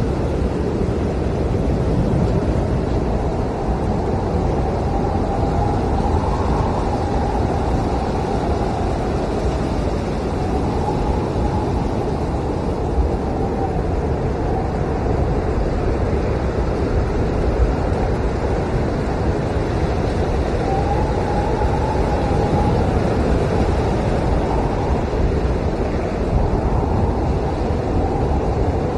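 Blizzard wind howling steadily, with a deep rushing roar underneath and a whistling pitch that swells and falls every few seconds.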